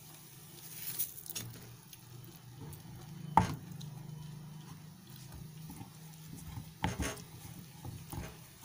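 Stuffed paratha cooking on a greased tawa, with a faint crackle over a low steady hum. There is a sharp knock about three and a half seconds in as the paratha is turned over, and a second knock near seven seconds.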